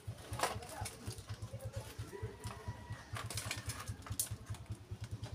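Plastic plant pots clicking and scraping as they are handled and pressed together, a few sharp knocks about half a second in and again around three to four seconds in. Under it runs a low pulsing hum, about eight beats a second.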